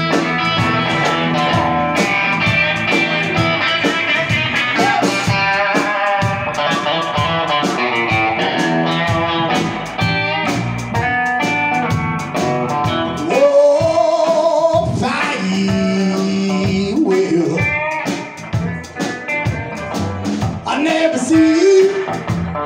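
Live blues-rock band playing: electric guitar, upright double bass and drum kit, with singing at times.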